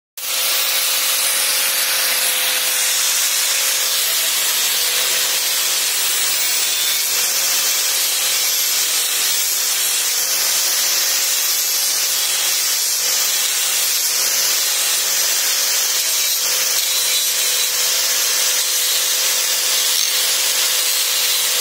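Electric angle grinder with a sanding disc running steadily and sanding a small piece of wood: a constant motor whine under the hiss of the abrasive disc rubbing the wood.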